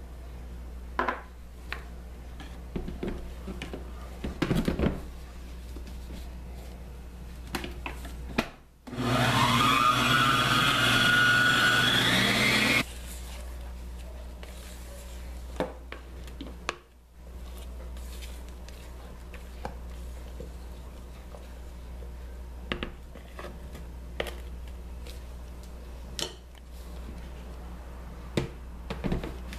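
Electric stand mixer motor run for about four seconds, its whine rising in pitch as it speeds up, then cut off suddenly. Around it, light knocks and scrapes of the plastic mixing bowl and batter being handled, over a low steady hum.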